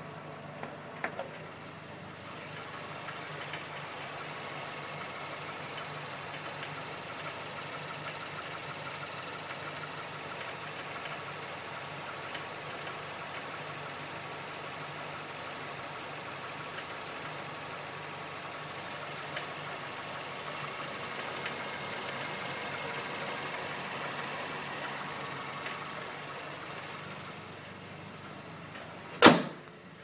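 A 2009 Mazdaspeed3's turbocharged 2.3-litre four-cylinder idling steadily, heard close up at the engine bay. There are a few light clicks about a second in and one loud knock near the end. The owner hears an intermittent clanking that he can't pinpoint, coming from behind the passenger wheel and suspension.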